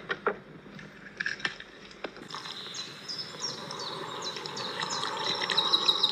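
A few sharp clicks in the first two seconds, then a steady hiss of milk pouring onto soil, with many short high chirps over it that grow louder near the end.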